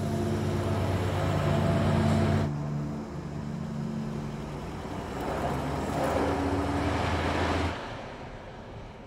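Car engines running: a steady engine hum that cuts off about two and a half seconds in, then a second vehicle swelling up and stopping abruptly shortly before the end.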